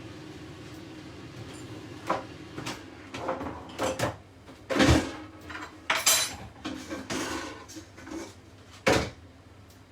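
Kitchen cookware and utensils clattering: an irregular run of sharp knocks and clinks, the loudest about five seconds in, over a steady low hum that drops away near the end.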